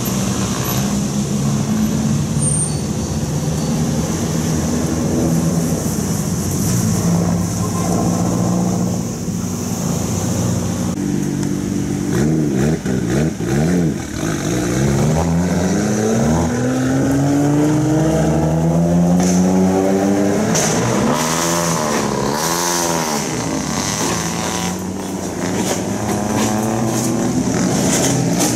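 Engines of several modified cars pulling away one after another on a wet road. The first half is low, steady engine running. From about halfway through, an engine revs repeatedly, its pitch climbing and falling several times.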